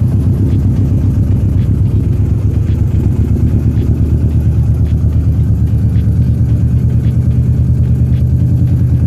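Kawasaki Vulcan S 650's parallel-twin engine idling steadily through an aftermarket exhaust, with an even, pulsing beat.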